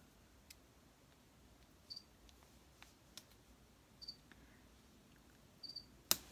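Quiet clicks and snips of scissors cutting, with the sharpest snip near the end. Short high chirps recur about every two seconds behind them.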